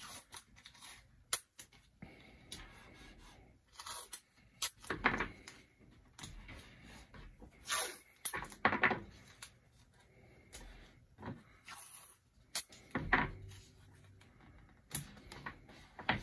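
Painter's tape being pulled off the roll in short rips and torn, with light rubbing and pressing sounds as the strips are laid onto the wooden pinball playfield.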